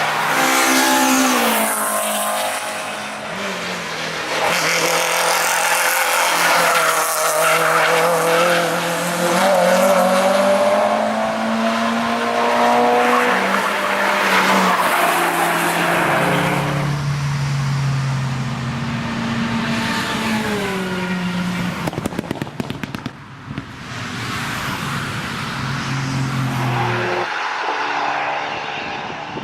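Several cars driven hard on a race track, one after another, their engines revving up and down through the gears with tyre noise. About two-thirds through, one engine fades under a brief run of sharp crackles before the next car comes in near the end.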